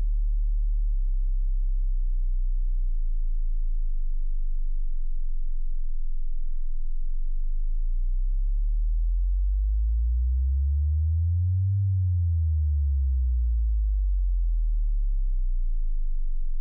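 Deep electronic sine tones: a steady bass drone, with a tone that slowly glides up to about twice its pitch and back down again in the second half.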